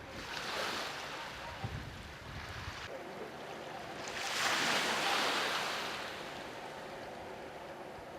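Sea waves surging and washing over a rocky reef, in two swells of rushing surf, the louder one about four seconds in.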